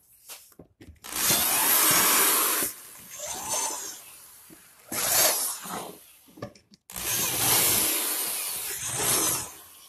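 Corded electric drill with a 2 mm bit boring pilot holes into MDF panel edges so the board doesn't split, in three bursts: a long one about a second in, a short one about five seconds in, and a long one from about seven seconds until near the end.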